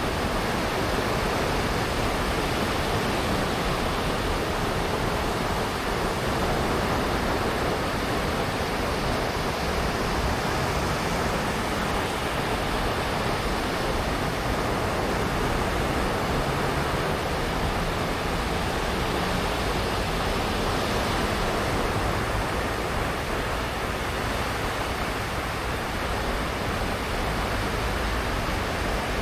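Surf washing onto a sandy beach: a steady, unbroken rush of waves with no distinct single breakers standing out.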